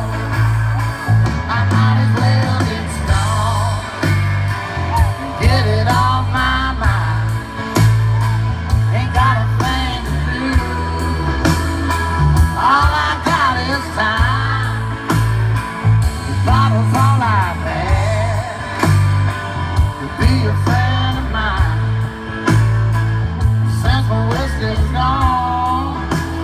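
A live band performing a blues-inflected country-rock song, with singing over electric guitar and bass.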